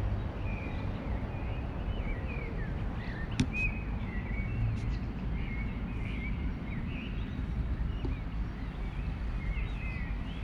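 Small birds chirping in short, scattered calls over a steady low rumble of outdoor background noise. A single sharp click about three and a half seconds in.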